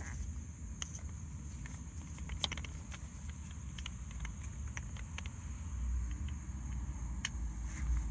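Scattered light clicks and taps of plastic fuel pump module parts being handled, over a steady low rumble and a thin high hiss.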